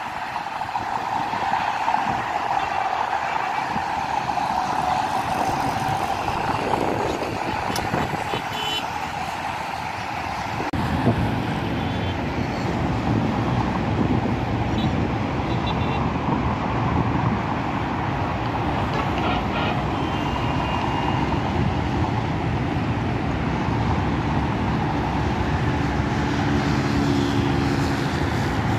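Steady highway traffic: cars, motorcycles and buses passing. A deeper rumble of heavier vehicles builds about eleven seconds in and holds.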